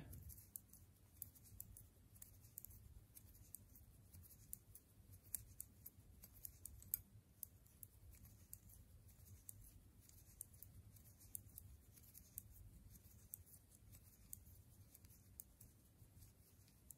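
Faint, irregular clicking of knitting needles tapping against each other as stitches are purled, a few clicks a second, over a faint low room hum.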